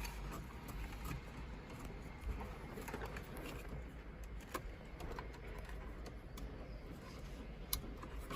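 Scattered light clicks and taps of plastic dashboard trim being handled and fitted, over a steady low hum.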